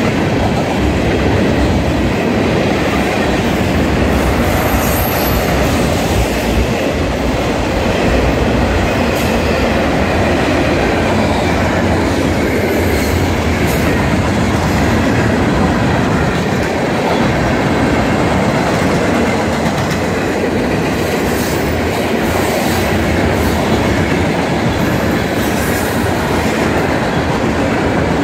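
Freight train cars rolling past close by: a steady loud rumble and clatter of steel wheels over the rails, with a brief high wheel squeal now and then.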